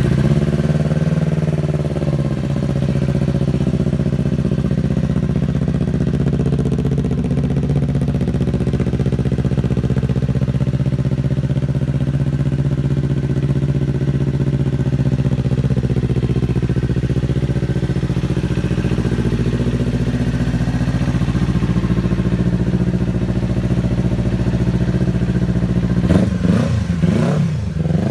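2018 Kawasaki Ninja 400's parallel-twin engine, just started, idling steadily. Near the end it is revved with a few quick throttle blips.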